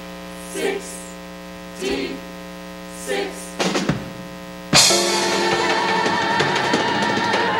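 Live stage music: a steady held low note with three short accents about a second apart, then a sharp hit, and the full band comes in loudly about five seconds in.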